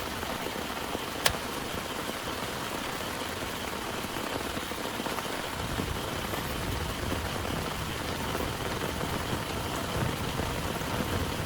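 Heavy rain falling steadily, with one sharp click about a second in. A low rumble builds through the second half.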